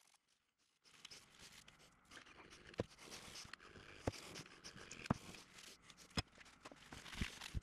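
Screwdriver blade scraping surface rust off the steel chip breaker of a Stanley hand plane: a faint, steady scratchy rasp that starts about a second in, with a sharp metal click about once a second.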